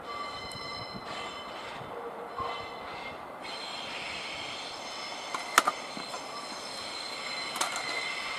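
JR Freight HD300 hybrid shunting locomotive rolling slowly through yard points, its wheels giving a high, steady squeal in several tones that grows stronger partway through. A couple of sharp clacks from the wheels over rail joints come about halfway through and again near the end.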